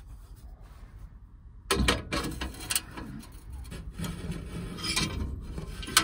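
Irregular metal scraping, rubbing and light clicks as a gas furnace's flame sensor rod is worked loose from its bracket among the sheet-metal burner tubes, starting about two seconds in.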